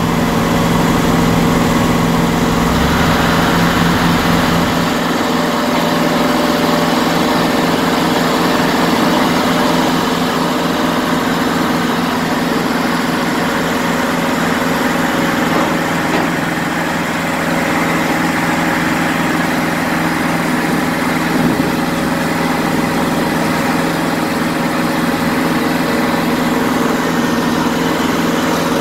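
Diesel engines of heavy construction machinery running at a steady speed, a continuous low drone.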